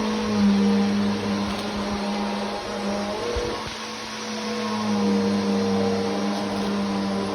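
Vacuum cleaner running, a steady motor hum over airflow noise that wavers slightly in pitch and loudness around the middle.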